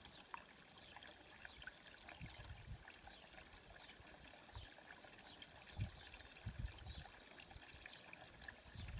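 Cat lapping water from a concrete trough: faint, quick wet licks, with a few short low thuds about two and a half and six seconds in.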